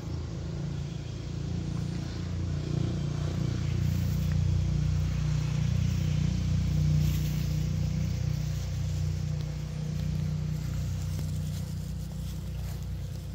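A low, steady rumble that swells to its loudest around the middle and eases off toward the end.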